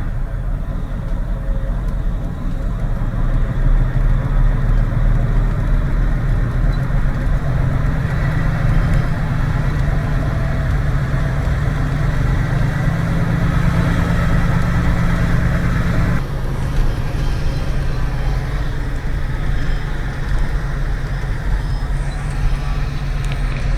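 Mercedes Actros truck engine running steadily while the truck is driven. Its hum eases off about two-thirds of the way through.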